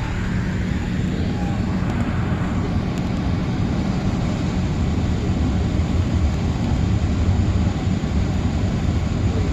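Airbus A380's jet engines running with a steady low rumble.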